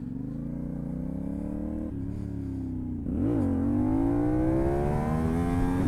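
CFMoto 450NK parallel-twin engine through a KO Lightning aftermarket exhaust, heard onboard while riding. The revs climb gently, there is a quick blip just after three seconds as it gets louder, and then it pulls with the revs rising steadily.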